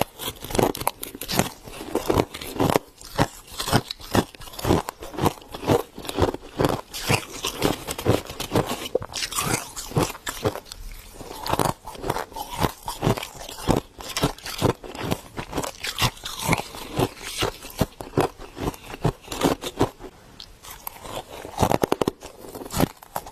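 Soft freezer frost being bitten and chewed, a close, continuous run of crisp crunches, several a second.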